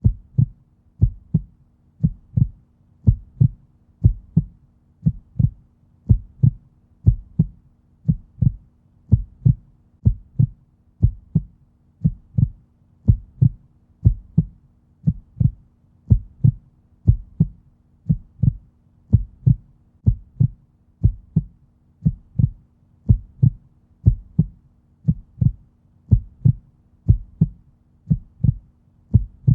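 Heartbeat sound: a steady lub-dub, two low thumps in quick succession, repeating about once a second like a resting heart rate.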